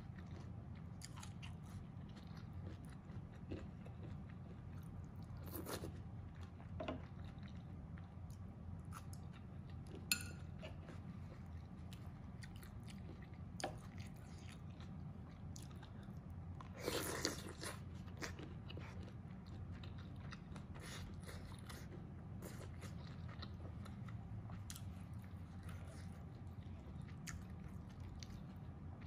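Close-up eating sounds: a person chewing mouthfuls of mapo tofu and rice, with a wooden spoon clicking and scraping against the bowl. A sharp click comes about ten seconds in, and a steady low hum runs underneath.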